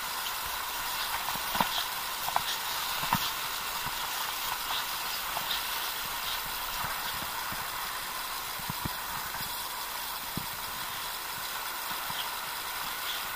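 Steady rushing of a river, with a few soft knocks and footfalls on grass and path, the clearest ones in the first three seconds.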